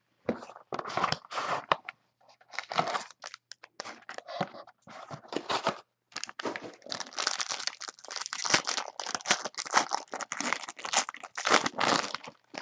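Gold foil wrapper of a 2014-15 Panini Gold Standard basketball card pack being torn open and crinkled, in irregular crackling bursts with short pauses.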